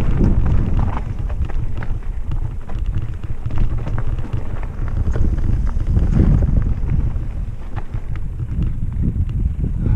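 Mountain bike riding along a dirt singletrack: a steady low rumble of wind on the microphone, with tyres crunching over dirt and stones and a constant run of small rattling clicks from the bike.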